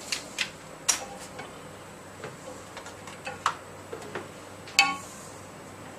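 Scattered clicks and taps of an HDMI cable's plug and a test rig being handled, with a louder ringing metallic clink near the end.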